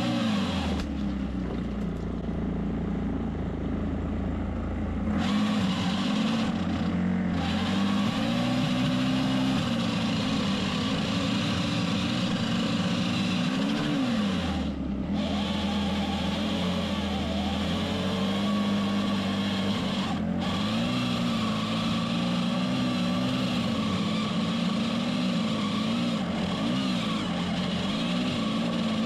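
Small engine running, its pitch rising and falling as the throttle is worked, with abrupt jumps about a second, five seconds, fifteen seconds and twenty seconds in.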